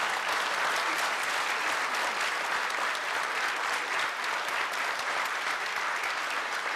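Studio audience applauding, many people clapping at a steady, even level.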